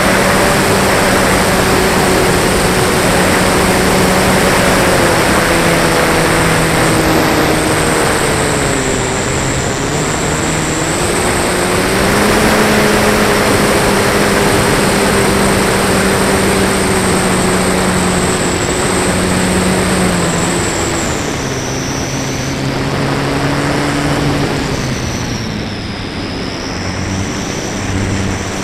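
Electric motor and propeller of a Flyzone Beaver RC plane running in flight, heard on board with wind rushing past. Its pitch steps down and back up several times and sits lower in the last third.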